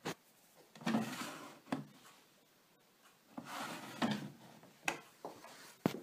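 Plastic detergent drawer of a Bosch Maxx 40 WFC 2445 washing machine being slid out and pushed back: two sliding scrapes, with sharp knocks and clicks between them.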